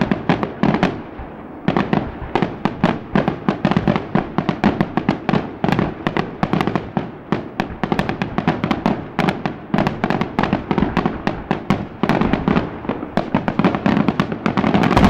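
Aerial fireworks display going off in a rapid, continuous string of bangs and crackles, several a second, with a brief lull about a second in.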